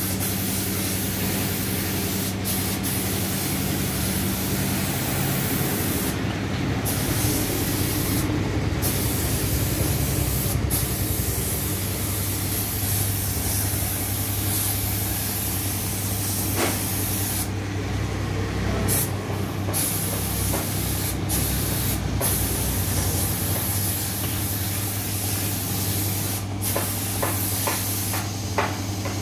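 Compressed-air paint spray gun hissing steadily, the hiss dropping out briefly several times, over a steady low hum.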